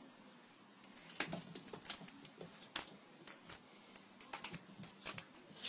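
A quick, irregular run of light clicks and taps, starting about a second in.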